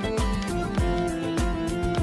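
Background music with a steady beat: plucked strings over a drum rhythm.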